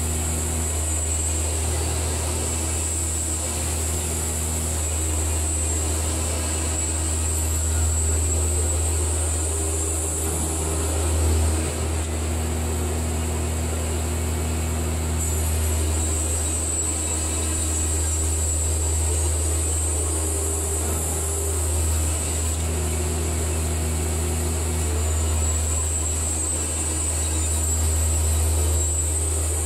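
Baker 3665D portable bandsaw mill running steadily, its band blade cutting along a log.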